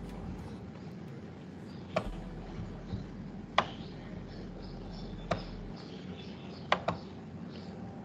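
Five sharp, isolated clicks spaced a second or two apart, two of them close together near the end, over a steady low hiss and hum.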